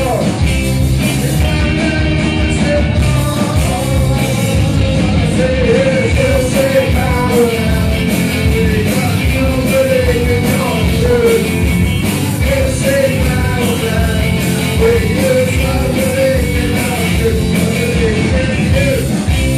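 Punk band playing live: electric guitars and drums with a male singer singing into a microphone.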